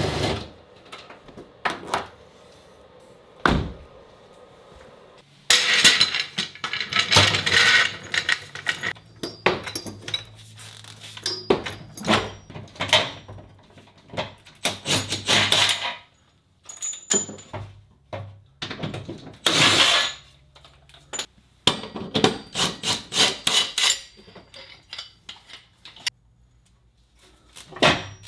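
Repeated short runs of a cordless impact wrench undoing bolts under the car during rear subframe and differential removal, between clanks and knocks of tools and metal parts.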